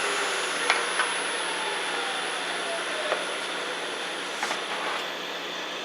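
A steady machine whir with a few light clicks.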